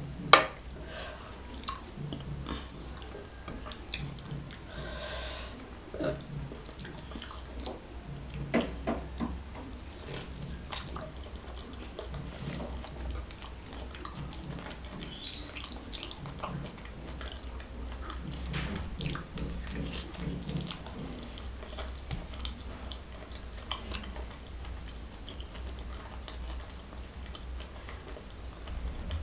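Close-miked chewing and wet mouth sounds of someone eating by hand, with small irregular smacks and clicks. About half a second in, a single sharp knock as a glass mug is set down on the table.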